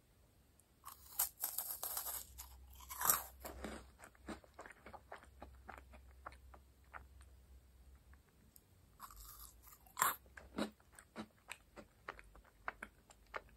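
A crisp meringue cookie bitten and chewed: a burst of dry crunching about a second in, then a run of small crackles as it is chewed, with another loud crunch about three-quarters of the way through.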